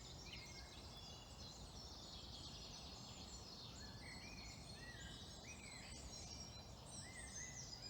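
A faint chorus of several songbirds singing at once: many overlapping chirps and short whistled phrases, over a low, steady background rumble.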